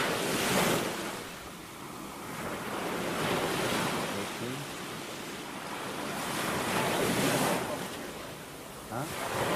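Ocean surf breaking and washing in, swelling and fading every few seconds.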